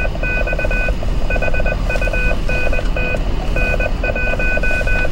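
A hidden fox-hunt transmitter's tone sequence received on 146.550 MHz and played through a 2-metre ham radio's speaker: a pair of high tones beeping on and off in short and long beeps, over a rapid buzzing pulse in a lower pitch. The fox box is answering after being keyed, so its signal is being received.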